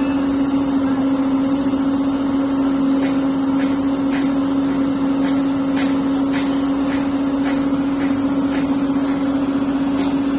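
Hyundai 140 crawler excavator's diesel engine and hydraulics running steadily under load, with a constant whine. Faint ticks come through about every half second.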